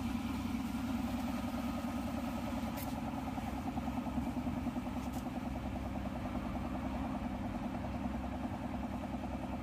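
An engine running steadily at idle: an even, low mechanical hum with a fast regular pulse.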